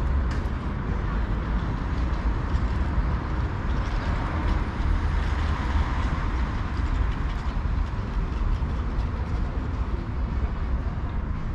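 Steady outdoor road-traffic ambience with a constant low rumble, the noise swelling a little around the middle as traffic passes.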